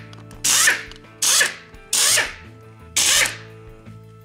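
Cordless impact driver running in four short bursts, each about half a second, spinning out the 8 mm cover bolts of an ATV's rear final drive case.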